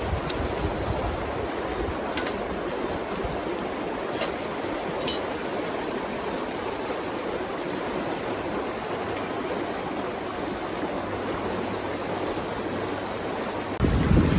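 River water rushing steadily over a stony bed, with a few brief clicks in the first few seconds. Just before the end, wind gusts onto the microphone with a low rumble.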